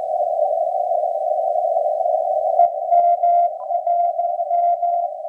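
Morse code (CW) signal on the 10-metre band heard through ham radio receivers: a tone keyed on and off in dots and dashes over hiss squeezed into a narrow 200 Hz filter. About two and a half seconds in there are two sharp clicks, and a second copy of the keyed tone joins at a slightly different pitch, the two radios having their CW tone set differently.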